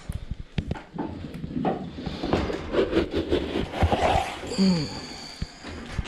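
A scoop digging into and scraping grain feed in a plastic barrel, rustling with knocks against the barrel. About four and a half seconds in, a single short bleat falling in pitch comes from the penned goats and calves.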